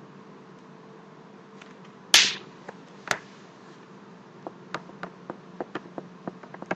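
Clicks at a computer desk: a louder knock about two seconds in and a sharp click a second later, then a run of small irregular clicks, over a steady low hum.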